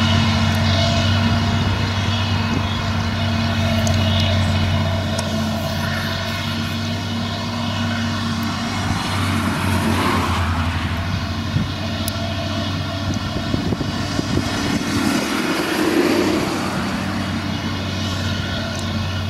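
Claas Jaguar self-propelled forage harvester running under load while chopping grass silage: a steady, deep engine drone with a stack of higher humming tones from the machine.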